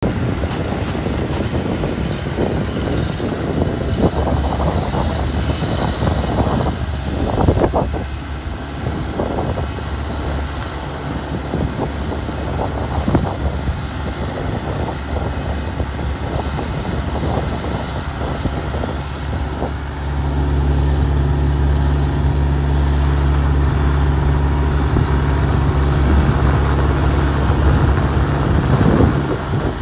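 Heking HK150SD amphibious excavator's diesel engine running as the machine works, with a few sharp knocks in the first half. About two-thirds of the way through, the engine gets louder and holds a steady, even note.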